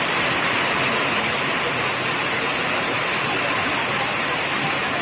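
A steady, even rushing hiss with no breaks or distinct events.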